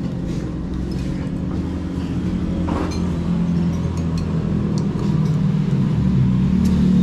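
A steady low engine-like rumble, growing a little louder near the end, with a few faint clinks of spoons on bowls.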